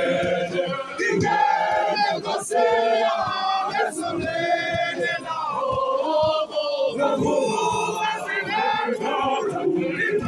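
Large men's choir singing a Zulu gospel song together.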